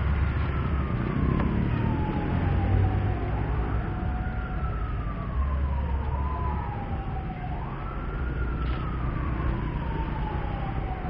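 A siren wailing, each cycle rising quickly and then falling slowly, repeating about every three and a half seconds over a steady low rumble of traffic.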